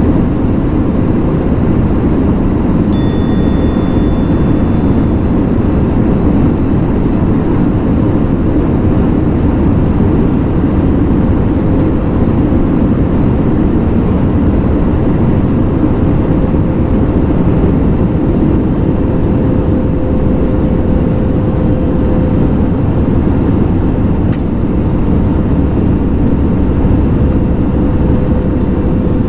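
Steady roar of an airliner cabin in flight: jet engines and airflow, with a faint steady hum running through it. A short high ding sounds about three seconds in, and a small click near the end.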